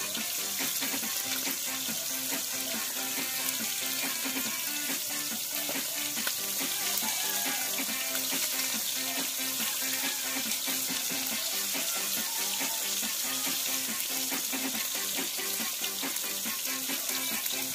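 Food frying in a wok over a wood fire, a steady sizzle, with a metal spatula stirring it. Music plays underneath.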